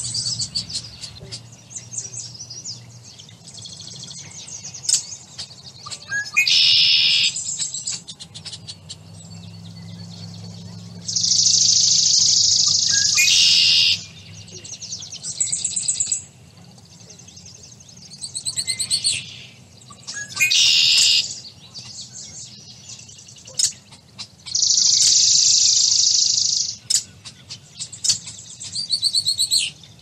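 Songbirds singing: loud, buzzy trilling songs of one to three seconds each, repeated every few seconds, with short chirps between.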